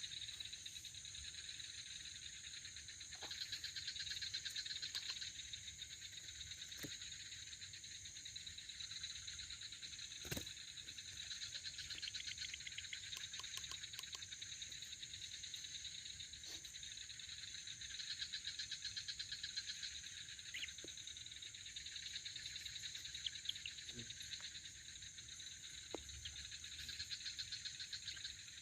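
Night chorus of crickets and other insects: a steady high shrill with pulsing trills that swell every few seconds. A few faint sharp clicks sound over it, the clearest about ten seconds in.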